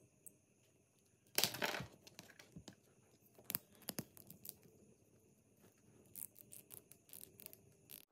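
Small clicks and scrapes of watch parts being handled and pressed together while a G-Shock DW-6600's bezel and band are swapped. A short, louder scraping rustle comes about a second and a half in, then single sharp clicks, and a run of quick small clicks near the end.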